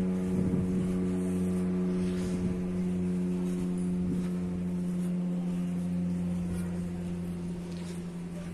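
A steady machine hum with a clear low pitch, easing off slightly toward the end.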